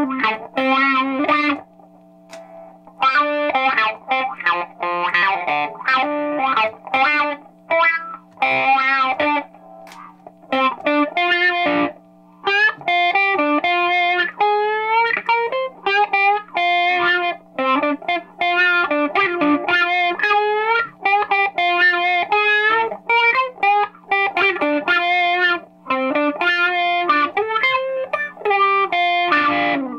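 Overdriven electric guitar playing a lead line through an Aria AWP-100 wah pedal, with a TS808-style overdrive and a Fender '65 Deluxe amp, the notes bending in pitch and stopping for short pauses.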